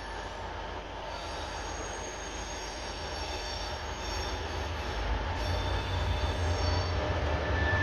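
Train wheels squealing against the rail as a train moves through the station, a set of thin high-pitched tones held over a low rumble that grows louder towards the end.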